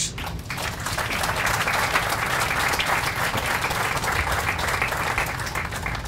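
Audience applauding, a dense patter of many hands clapping that dies down near the end.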